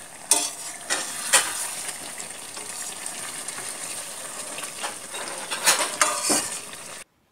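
Metal spatula stirring and turning taro pieces in a metal pan of simmering coconut-milk curry, with a few louder scrapes and clinks against the pan over a steady sizzle from the cooking curry. The sound cuts off suddenly near the end.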